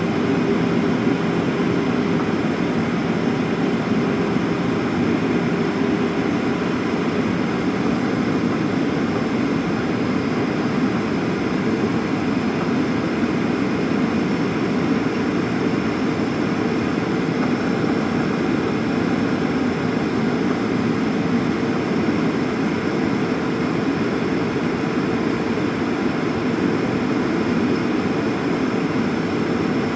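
Cabin noise of a Boeing 737 descending for landing: a steady rush of air with the hum of its twin turbofan engines. About seven seconds in, a low engine tone fades out and a slightly higher one comes in, as the thrust setting changes.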